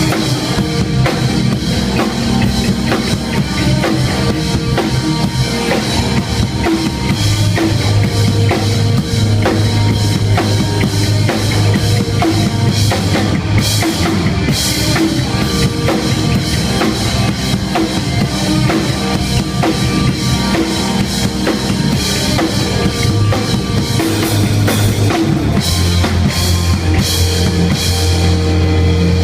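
A drum kit played close-up in a hardcore band's song: kick drum, snare and cymbals hit thick and fast over sustained low notes.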